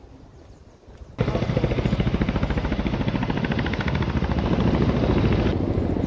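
A loud machine noise with a fast, even throb, cutting in abruptly about a second in, with its high end dropping away near the end.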